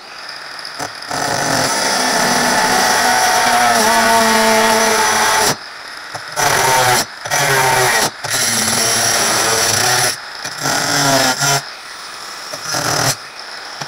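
Makita M9502R angle grinder with a thick disc cutting through steel angle iron. The motor's pitch dips and wavers as the disc bites, and the sound breaks off abruptly several times before stopping near the end.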